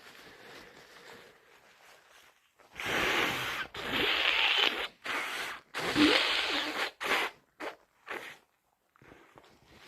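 A person with a heavy head cold blowing a congested nose, gurgly: three hard blows of about a second each, then a few short snorts.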